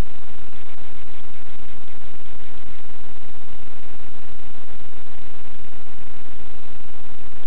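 Steady, loud hiss with a faint buzz running through it, unchanging throughout.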